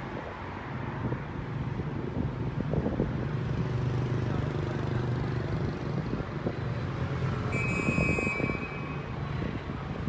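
Steady low rumble of city traffic. About three-quarters of the way through, a short, high, steady tone sounds for about a second.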